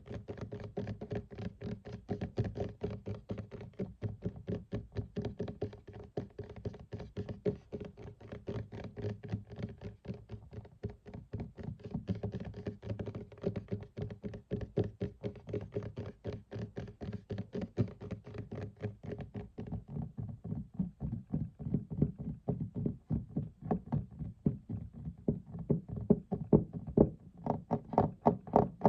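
Fingers tapping fast on a desk, several taps a second. About two-thirds of the way through the taps turn softer and duller, then grow louder again near the end.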